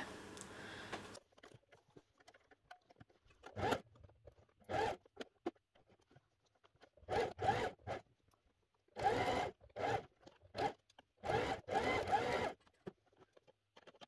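Electric sewing machine stitching in short stop-start runs, a dozen or so bursts of under a second each with pauses between, sewing through layered cotton fabric and cotton batting.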